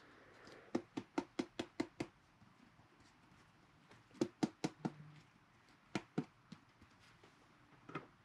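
Sharp taps and clicks of a hard plastic top-loader card holder being handled and knocked on a tabletop: a quick run of about seven taps in the first two seconds, another cluster about four seconds in, and a few single knocks later.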